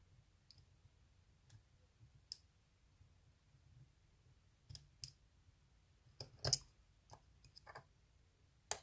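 Faint, irregular metallic clicks from a dimple pick probing and setting the pins of a Mul-T-Lock dimple padlock, with the loudest click about six and a half seconds in.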